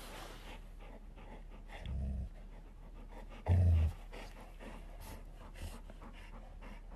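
Golden retriever giving two short, low growls while mouthing a tennis ball that another dog also holds, the second growl louder; a play-grumble over the ball. Faint clicks from the ball in the dogs' mouths between them.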